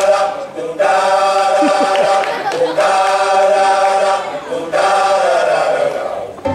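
Recorded dance-mix music with a choir singing long held chords, in three or four phrases of about two seconds each with brief breaks between them.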